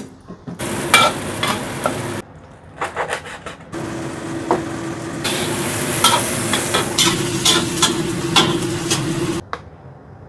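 Kitchen cooking sounds in quick cuts: a ladle clinking and stirring in a steel soup pot, then from about four seconds in a wok stir-fry sizzling, with the spatula scraping and clicking against the wok. The sizzle cuts off suddenly near the end.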